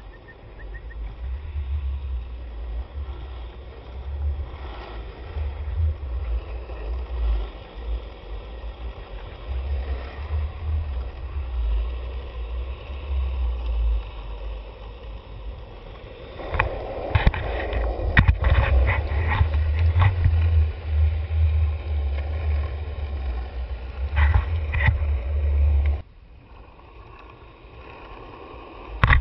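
Skateboard wheels rolling over asphalt: a steady low rumble, broken by a run of sharp clicks and knocks about two-thirds of the way through and a few more a little later. The rumble drops away suddenly near the end.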